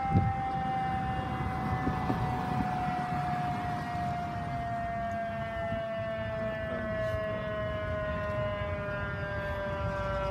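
Fire engine siren sounding as the engine approaches: one long tone that falls slowly and steadily in pitch, over a low rumble.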